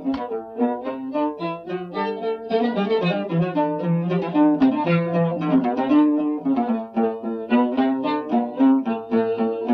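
A violin and a plucked lute playing a Turkish song melody together, the violin carrying long bowed notes over the lute's plucked notes.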